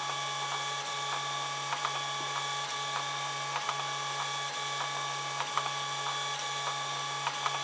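3D printer running a print: its stepper motors hum and whine steadily as the bed and print head move, with scattered small clicks.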